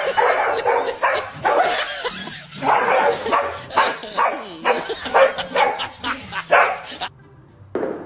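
A small dog and a golden retriever barking at each other through a glass door: a run of short, uneven barks that stops suddenly about seven seconds in.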